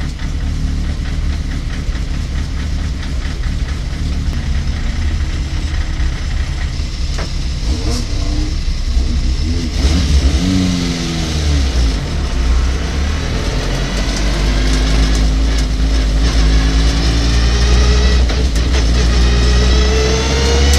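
Race pickup truck's engine heard from inside its caged cabin, running steadily at low revs at first. About eight seconds in it revs up and down a few times, and near the end it pulls hard with the revs climbing steadily.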